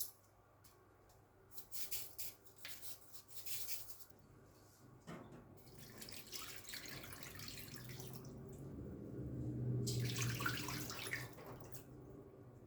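A few light kitchen clicks and knocks, then a kitchen tap running for several seconds, growing louder before it is turned off near the end.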